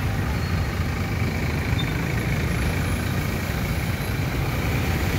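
Steady road traffic noise from motorcycle and scooter engines and heavier vehicles running at low speed through floodwater on the road.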